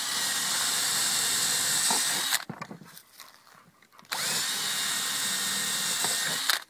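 Cordless drill with a 5.5 mm bit boring holes through a drawer front: two steady runs of about two and a half seconds each, with a pause of about a second and a half between them.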